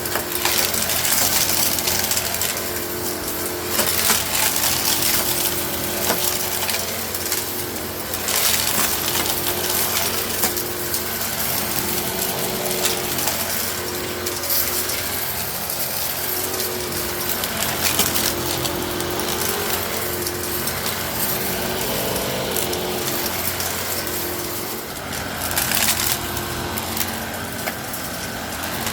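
Eureka Innova NEU700 upright vacuum running over carpet and sucking up aquarium gravel. A steady motor hum that wavers a little in pitch sits under a constant rattle and crunch of small stones clicking through the brushroll and into the machine.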